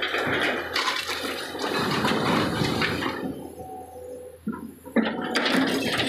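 Broken quarry stone rushing and rattling as an XCMG crawler excavator tips a bucketload into the steel tipper body of a Tata dump truck; the noise falls away about three seconds in. A sudden loud crunch about five seconds in as the bucket digs back into the rock pile.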